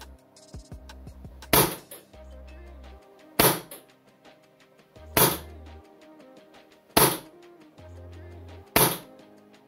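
Five single shots from an HPA-powered airsoft gun with a Sparklabs Wolf engine, fired about every two seconds. The nozzle dwell has been cut to 4 ms, a setting at which shot consistency is not so OK.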